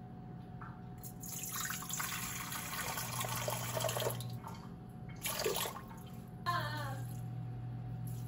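Water poured from a measuring cup into an empty stainless-steel stand-mixer bowl, splashing and trickling for about three seconds. A short knock follows, then a brief squeaky scrape as the next ingredient is handled, over a steady low hum.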